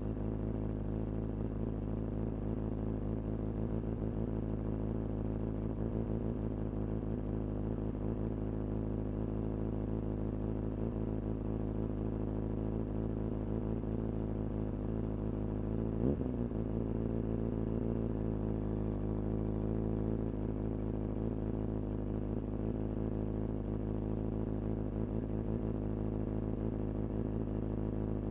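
Kawasaki ZX-6R inline-four sport bike engine idling steadily through a Hindle aftermarket exhaust, with one short blip of the throttle about midway.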